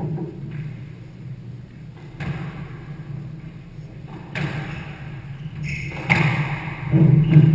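Squash rally: a handful of sharp knocks as the rubber ball is struck by the rackets and hits the walls, one every second or two and loudest near the end, over a steady low hum.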